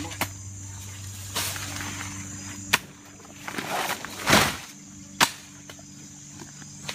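A digging tool striking into soil while taro corms are dug up: single sharp chops about once a second, five in all, the one a little after four seconds the loudest and longest.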